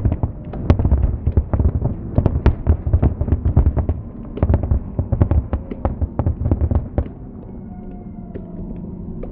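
Aerial fireworks bursting in rapid succession, many sharp bangs a second and overlapping, until the barrage dies down about seven seconds in, leaving a low rumble.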